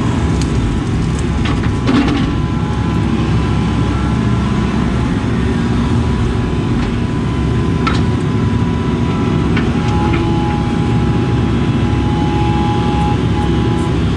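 Case CX80 excavator's diesel engine running steadily under load while it digs, heard from inside the cab, with a couple of sharp knocks along the way.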